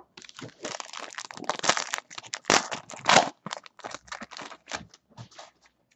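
Foil wrapper of a basketball trading-card pack crinkling and crackling in rapid, irregular bursts as it is torn open and the cards are pulled out, thinning out near the end.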